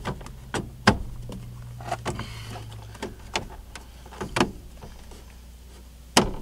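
Plastic interior door trim panel of a 2008 Ford F-150 being pressed back onto the door, its retaining clips snapping in: a series of sharp clicks and knocks, the loudest about a second in and just before the end. A low steady hum runs under the first half and stops about three seconds in.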